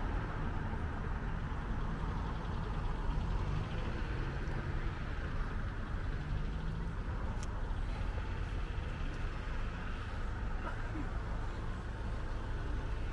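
Steady low rumble of road traffic, with a faint engine tone early on and a single sharp click about seven seconds in.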